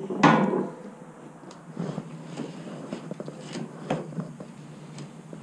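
Handling noises as paracord rigged through a pulley is pulled to work a kayak's manual anchor pole: a louder rustle about a quarter second in, then quieter rustles and light clicks.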